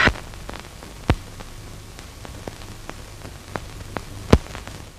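Background noise of an old optical film soundtrack: steady hiss and low hum with scattered clicks and pops, the loudest about a second in and near the end.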